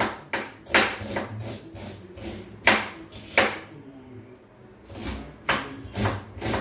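Kitchen knife chopping onion on a wooden cutting board: a run of sharp, irregular knocks, about two a second, with a pause of a second or so past the middle.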